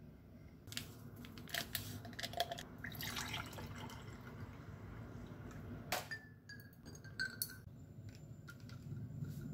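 Sparkling water poured from a plastic bottle into a glass of pink lemonade, after a few light taps and before a sharp glass clink about six seconds in, with faint ringing as the glass is handled.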